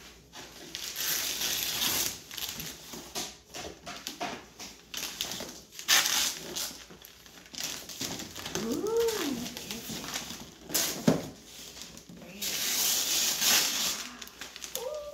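Wrapping paper and tissue paper being torn and crumpled in repeated bursts as a present is unwrapped, with a toddler's short rising-and-falling vocal sound about nine seconds in.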